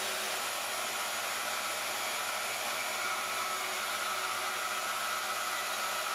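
Harbor Freight portable bandsaw running steadily, its blade cutting through steel angle iron, with a faint high whine from about a second in.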